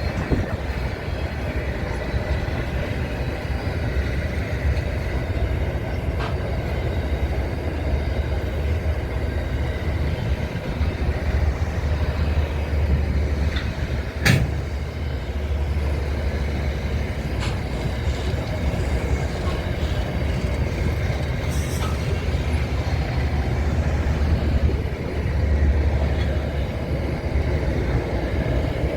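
Train running with a steady low rumble, a few faint clicks and one sharp knock about halfway through.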